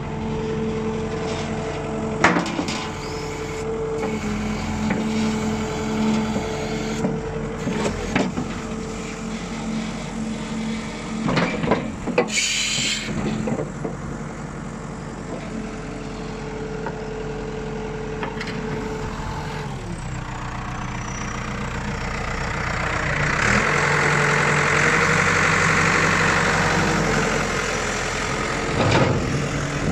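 New Holland LB95 backhoe loader's diesel engine running steadily, with scattered knocks and clunks. There is a short hiss about twelve seconds in, and the engine grows louder for several seconds about two-thirds of the way through.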